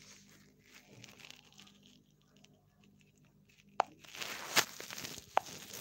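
Handling noise from a phone being held and moved against a surface: soft rustling and crinkling with scattered clicks. It is faint at first, then a sharp click just before four seconds in leads into louder rustling with a few more clicks.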